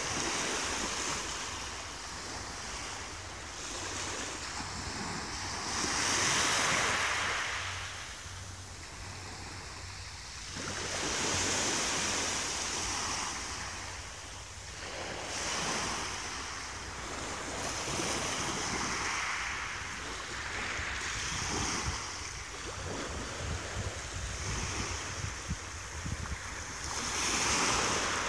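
Small waves breaking gently on a sand and shingle shore of a calm sea, the wash swelling and fading every few seconds.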